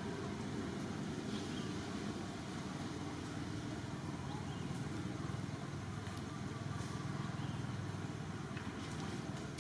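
Steady low rumble of outdoor background noise, with a few faint short high chirps now and then.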